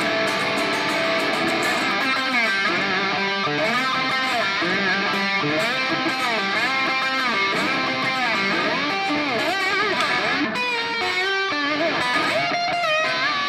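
Electric guitar played with a slide through distortion: a fast, wild slide solo in the key of G with open strings ringing, the notes gliding up and down and wavering with wide vibrato.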